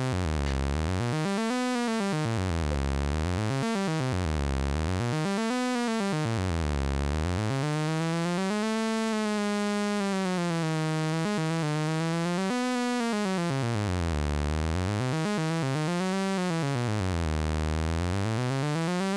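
Sawtooth synthesizer oscillator in Drambo droning continuously, its pitch sweeping smoothly up and down in waves as a MIDI CC modulation sequence drives it. The sweeps come about every two seconds at first, then rise to a higher, longer plateau before swinging low and high again.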